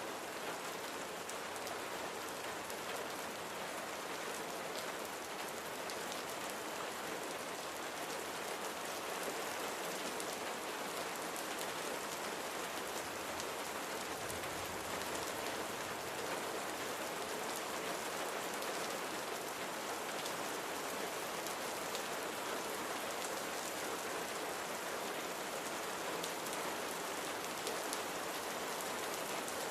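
Steady rain falling on surfaces, an even hiss of many drops with faint individual drop ticks scattered through it.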